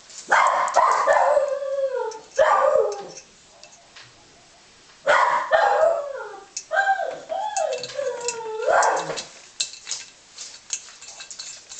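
A dog howling and whining in two bouts of wavering calls that slide down in pitch, the second starting about five seconds in, with light clicks and taps between them.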